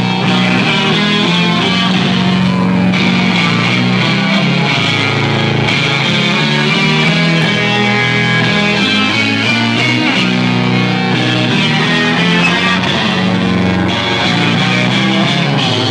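Rock band playing live at full volume, led by electric guitars over bass and drums.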